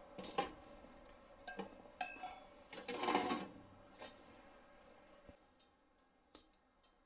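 Sheet-metal access cover of a small fuel oil boiler block heater being opened and handled: a string of light metallic clanks and rattles, busiest about three seconds in, then a few fainter clicks.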